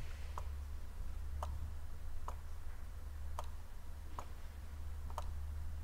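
Light, sharp clicks at a fairly even pace of about one a second, over a low steady hum.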